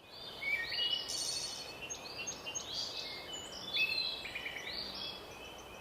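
Birds singing, a string of high chirps and short trills overlapping one another.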